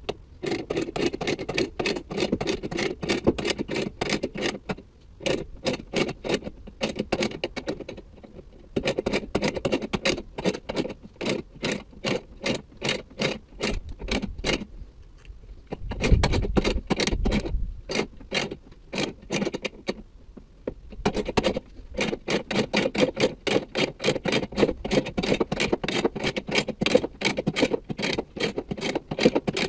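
Scissor jack being wound up with its crank to lift a van: a long run of sharp clicks, about four a second, broken by a few short pauses, with a low thud about sixteen seconds in.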